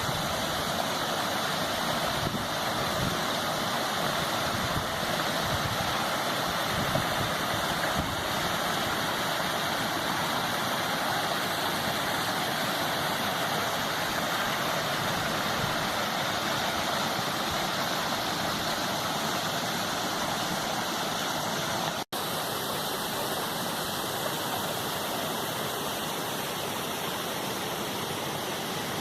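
Waterfall: water rushing and splashing in a steady, dense roar. About three-quarters of the way through it breaks off for an instant and resumes a little quieter.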